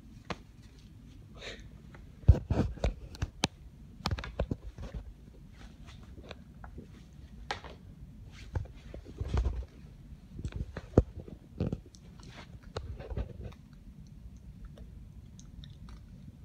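A beagle puppy chewing on and knocking about a clothes hanger: irregular clicks, knocks and crunches in clusters, with short pauses between.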